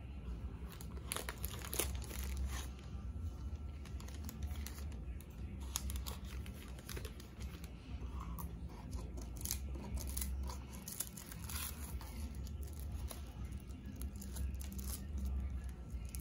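Tissue paper and plastic wrapping crinkling and rustling as a boxed package is unwrapped by hand, with many short, irregular crackles, over a low background hum.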